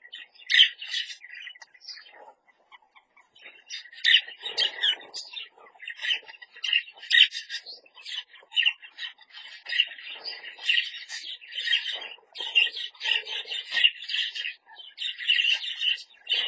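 Budgerigars chattering, a near-continuous stream of quick chirps and warbles from several birds. The chatter thins out about two seconds in, then picks up again after another two seconds.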